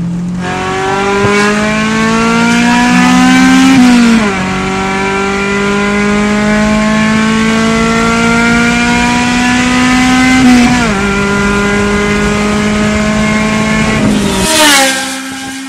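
A 1993 Honda del Sol's four-cylinder engine and valved exhaust at full throttle, revving high with the exhaust valve open above 5,500 rpm, where VTEC engages. The rising engine note drops back at two upshifts, about four and eleven seconds in. Near the end comes a quick whoosh with a falling pitch as the car passes by.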